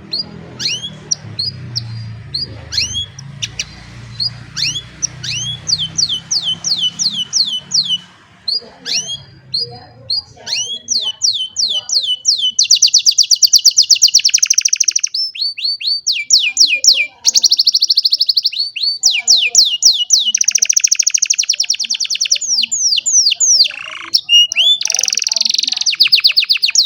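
Domestic canary singing: a run of repeated sweeping chirps that, about halfway through, turns into fast, louder trills and rolls. A low hum sits under the first several seconds.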